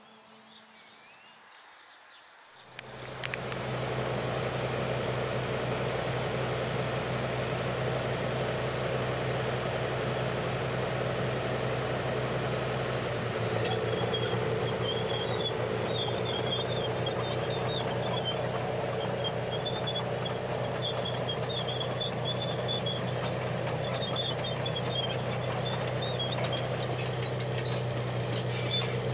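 Crawler bulldozer's diesel engine running steadily, with a deep, even hum; it starts a few seconds in as soft music fades out. From about fourteen seconds in a high, wavering squeal rides over it.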